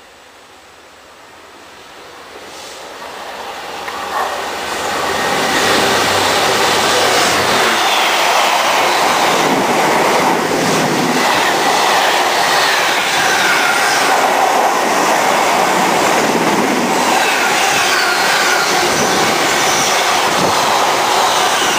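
Freightliner intermodal container train passing at speed: the rumble of its wagons on the rails grows louder over the first five seconds or so, then holds steady and loud as the container wagons go by close.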